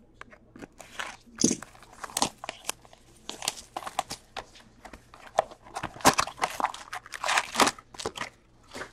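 A cardboard box of trading cards slit with a box cutter and torn open by hand, then its foil card packs crinkling as they are pulled out: a run of irregular crackles, snaps and rustles.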